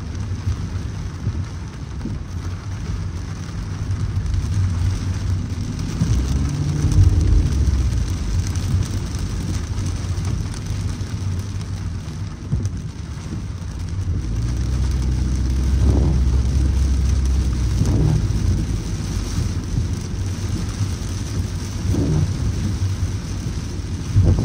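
Heavy rain on a moving car, under a steady low rumble of road noise. A few short knocks come in the second half.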